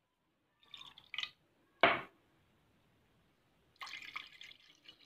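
Water poured from a clear glass cup into a wide nonstick pan, splashing in short spells, with one sharp knock about two seconds in.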